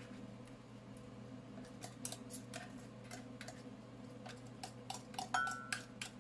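Scattered light clicks and taps of kitchen food preparation, thickening about two seconds in, with a brief squeak a little after five seconds that is the loudest moment, over a steady low hum.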